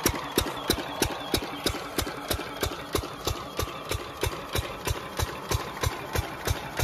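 Single-cylinder stationary diesel engine with twin flywheels running steadily while it drives an irrigation water pump. Each firing is a distinct beat, about three a second, at an even pace.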